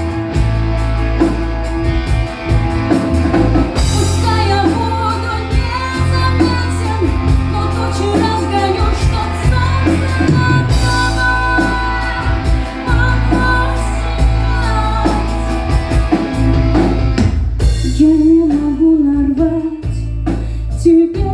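Live rock band music with drums, bass and guitar under a bending melodic lead line. About seventeen seconds in, the drums and cymbals drop out, leaving a thinner passage.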